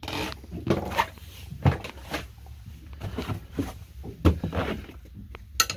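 Irregular knocks, bumps and clunks of a person moving about and handling gear, with the loudest knocks about four seconds in and near the end.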